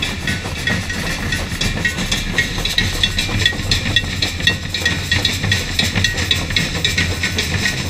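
Samba percussion band playing in a march, a dense even rhythm of quick high strokes over a steady pulse of deep bass drums.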